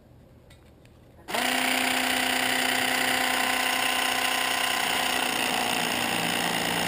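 Great Planes electric hinge slotting tool switching on about a second in and buzzing steadily as its vibrating blade is pressed into the edge of a wooden part to cut a hinge slot.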